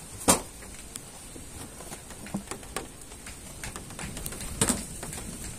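Wooden beehive frames and boxes being handled: a sharp knock about a third of a second in and another near the end, with scattered lighter clicks and taps between them.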